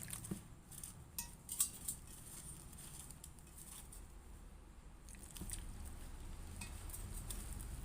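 Hands kneading a damp ragi-flour dough in a bowl: soft, wet squishing and patting, with a few sharp ticks in the first two seconds.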